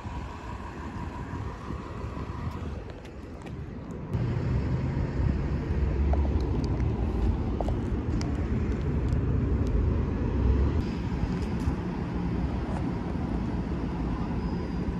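Road vehicle noise: a steady low rumble that grows louder about four seconds in and then holds.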